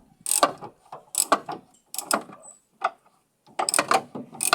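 Ratchet wrench clicking in quick runs of strokes as a loose stabilizer link nut is backed off, with a short pause about three seconds in.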